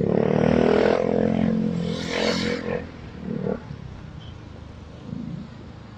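Motorcycle engine accelerating as the bike pulls away, its pitch rising over the first couple of seconds before it eases off to a lower, steadier running sound.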